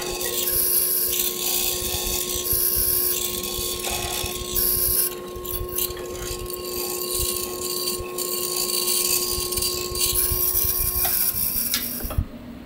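Hollow-chisel mortiser running, its motor giving a steady hum and whine while the square chisel and auger are pulled down again and again into walnut, each plunge a burst of rasping cutting noise. The motor sound stops shortly before the end.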